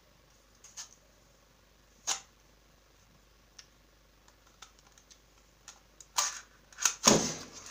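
Hand-operated lever chip cutter being worked to press potatoes through its blade grid: scattered metallic clicks and clacks from the lever and pusher, with a louder run of knocks near the end.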